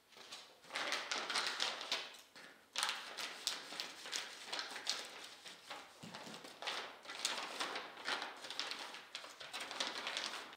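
Clear plastic parts bags crinkling and rustling as they are handled, with light taps of parts being set down, in several stretches with short pauses between.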